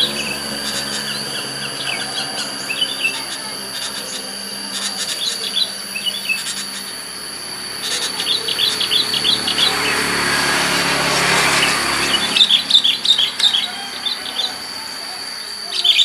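Sooty-headed bulbuls calling: short bursts of rapid chirps several times, the loudest a little after the middle, over a steady high-pitched whine.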